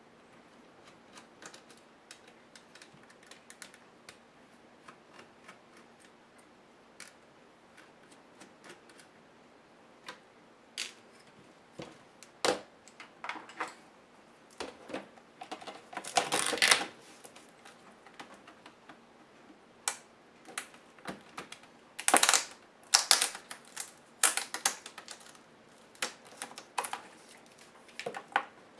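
Hands taking apart a Compaq CQ70 laptop's screen assembly: plastic and metal parts of the LCD panel, its bracket and the screen cover clicking and knocking against each other. Light ticks at first, then louder clatters and knocks in bunches in the second half.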